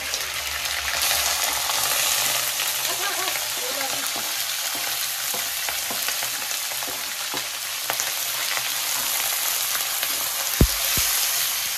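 Raw meat and fat chunks frying in hot oil in a steel wok, a steady sizzle, with a perforated steel ladle stirring them. A sharp knock near the end, with a smaller one just after.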